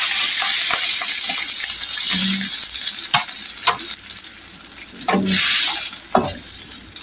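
Pork pieces sizzling in a nonstick wok, a steady hiss that eases off in the second half. A few sharp knocks against the pan come about three to six seconds in.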